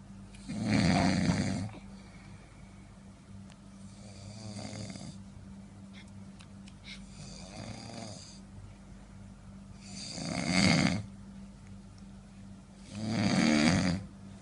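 A man snoring loudly in deep sleep: five snores about three seconds apart, the first and the last two loud, the two in between softer. A steady low hum runs underneath.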